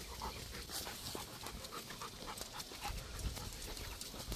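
Male Rottweiler panting quickly and evenly, several breaths a second.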